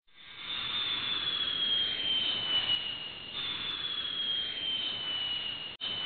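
Electric motor of a cleaning appliance running with a high whine that slowly sags in pitch, then jumps back up about three seconds in. The sound cuts out for an instant near the end.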